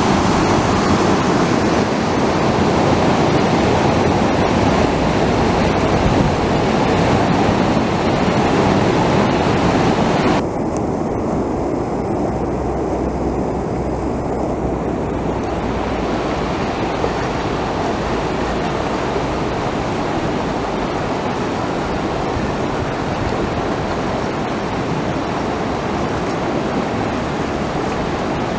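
Flash-flood water rushing down an arroyo: a loud, steady rush of churning muddy water. About ten seconds in it drops abruptly to a slightly quieter, duller rush, and the hiss comes back over the next few seconds.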